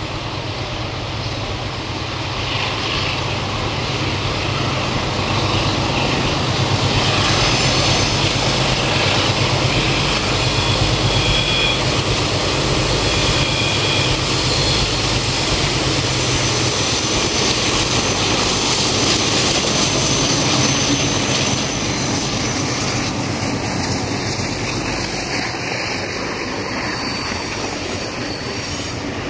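Alco diesel locomotives working under power as they haul a passenger train past, the engine sound building to a loud, steady peak and then easing off as the carriages roll by near the end.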